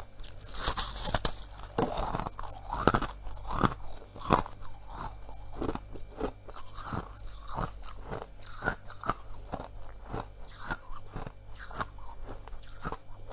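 A person chewing mouthfuls of squeaky freezer frost: a steady run of crisp crunches, about two to three a second, loudest in the first few seconds.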